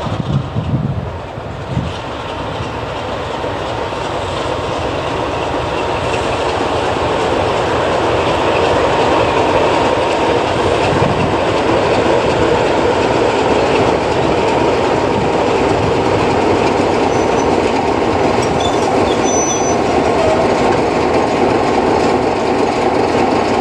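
Class 33 'Crompton' diesel locomotive's Sulzer eight-cylinder engine running as the loco draws slowly up and past close by, growing louder over the first several seconds and then holding steady.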